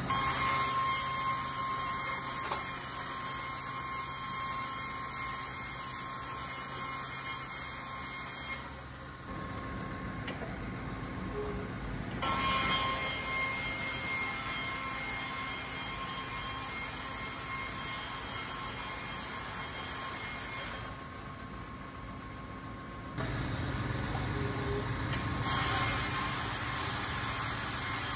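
Stenner ST130 band resaw running and ripping timber into tapered firring strips with a jig: a steady machine noise with a faint high whine. The sound changes in level and tone a few times, about a third of the way in, near the middle and again near the end.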